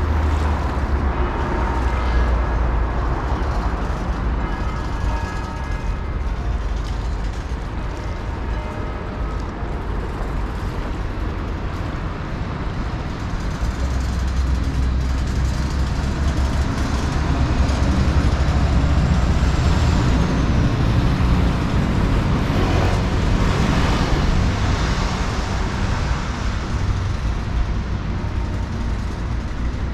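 Steady road-traffic rumble from passing vehicles, heavier toward the middle.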